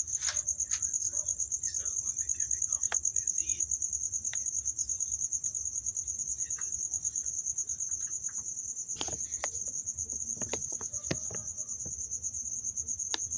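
Insects, likely crickets, chirping in a steady, high, fast-pulsing trill, with a few faint knocks near the end.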